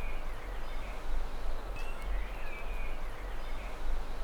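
Outdoor ambience: a bird sings short chirping phrases near the start and again about two seconds in, over a steady low rumble and hiss.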